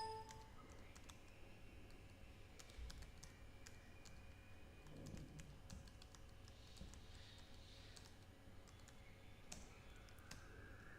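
Faint computer keyboard typing and key clicks over near-silent room tone, with a brief tone right at the start.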